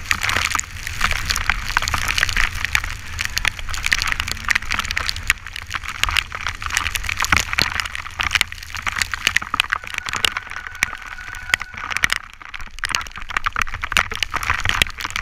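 Rain pattering on a GoPro camera housing in a dense stream of sharp clicks, over the steady hiss of bicycle tyres on a wet road and a low wind rumble on the microphone.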